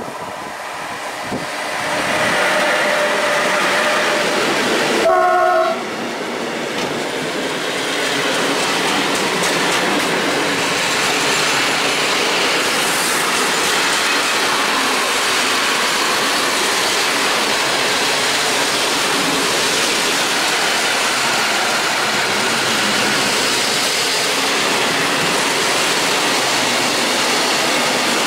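Electric freight locomotive passing close by, giving one short horn blast about five seconds in. A long string of open gondola wagons follows, with the steady sound of wheels rolling over the rails.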